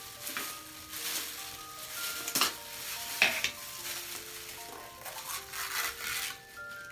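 Clear plastic disposable gloves crinkling as gloved hands twist and pull the lid off a plastic jar, with two sharp clicks about two and a half and three seconds in. Soft background music notes sound underneath.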